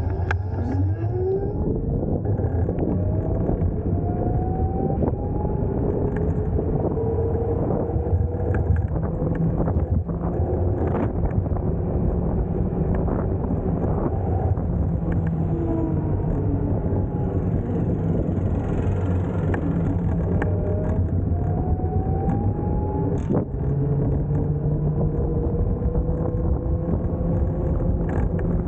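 Electric motor of a Nanrobot electric scooter whining under way, its pitch rising several times as the scooter speeds up, over a steady rumble of wind and road noise.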